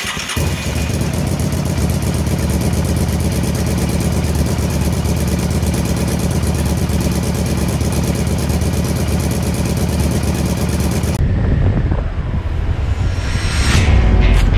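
Motorcycle engine running steadily with a fast, even pulse. About eleven seconds in the sound changes abruptly to a duller engine-and-riding noise that grows louder near the end.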